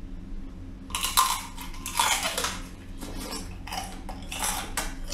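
Crab shell cracking and crunching as a whole crab is broken and chewed shell and all: a run of sharp, irregular crunches starting about a second in.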